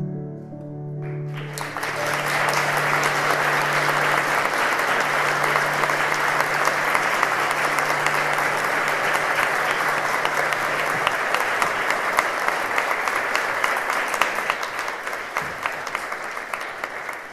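Audience applause breaks out about a second in and keeps going, thick with hand claps, easing off near the end. Under it the piano's final low note rings on for roughly the first ten seconds.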